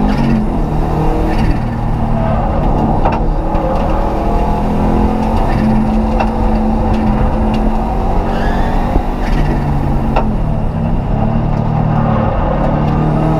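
Rally car engine heard from inside the stripped, roll-caged cabin, revving up and dropping back repeatedly as the car is driven hard, with a few sharp knocks now and then.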